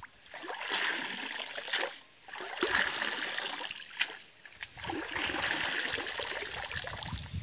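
Cast net being dunked and swished in shallow water, in three spells of splashing, with water streaming off the mesh as the net is lifted out near the end.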